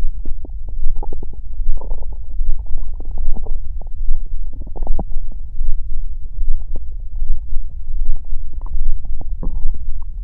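Human stomach growling: a continuous deep rumble with frequent irregular gurgles and small bubbling pops, busiest about two seconds in and again around five seconds in.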